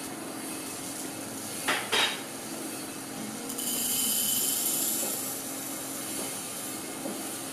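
Two sharp clinks about two seconds in, then steel shot pouring from a plastic jug into a porcelain dish: a steady hissing patter of small metal pellets that swells for a couple of seconds and then eases off.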